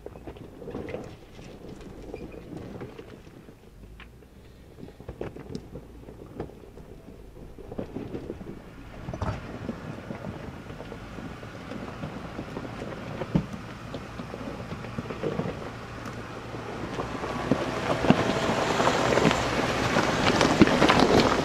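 Jeep Wrangler Unlimited Rubicon crawling slowly over a rocky wash, its tyres crunching and popping over loose gravel and stones with the engine running low underneath. It grows louder as it comes close and passes by near the end.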